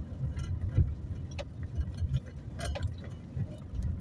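A car driving slowly over a bumpy dirt track, heard inside the cabin: a low engine and tyre rumble with scattered knocks and rattles as it goes over the ruts.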